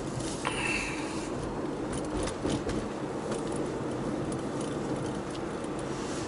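Steady road and engine noise inside a moving car, with light scattered clicks and jingling, and a brief high squeak about half a second in.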